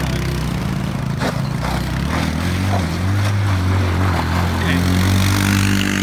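Small gas-powered utility vehicle (UTV) engine running loud and revving up as it climbs over a snowbank, with a couple of knocks about a second in.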